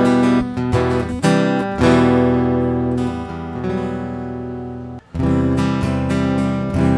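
Acoustic guitar (violão) strumming chords in an instrumental passage without singing. It breaks off briefly about five seconds in, then strumming resumes.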